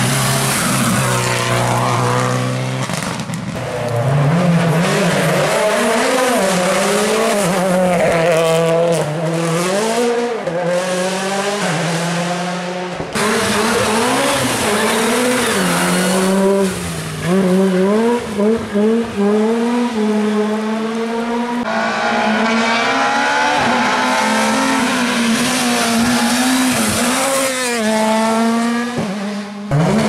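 Rally cars passing at full speed, one after another: engines revving hard, the pitch climbing through each gear and dropping at every shift. The sound changes abruptly to a second car about 13 seconds in.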